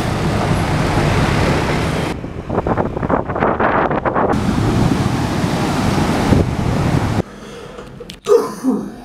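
Wind rushing over the microphone, mixed with road and motorbike traffic noise, in a few short cuts. It stops abruptly near the end and gives way to a quiet room, where one cough sounds.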